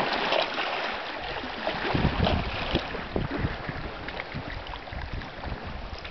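Small waves lapping and splashing against shoreline rocks, with wind buffeting the microphone in gusts from about a second in.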